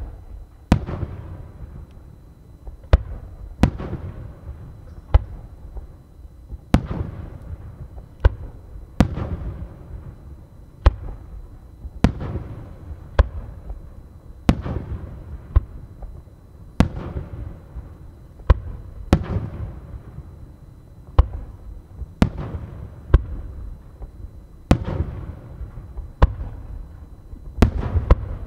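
Aerial firework shells bursting in quick succession, about two dozen bangs spaced one to two seconds apart. Each bang is followed by a rolling, echoing rumble.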